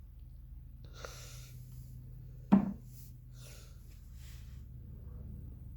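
Handling noise over a steady low hum, with faint rustles and one sharp knock about two and a half seconds in.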